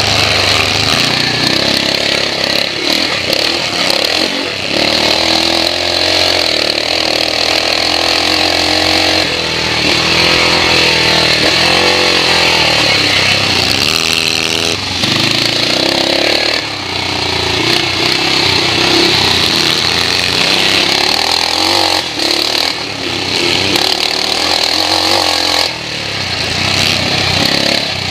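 BSA 441 cc single-cylinder four-stroke engine of a Metisse scrambles bike racing under full load, its revs repeatedly rising and falling.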